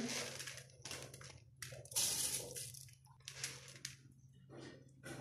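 Water at a rolling boil in a large pot with soaked rice just added, bubbling and popping in irregular bursts. A faint steady low hum runs underneath.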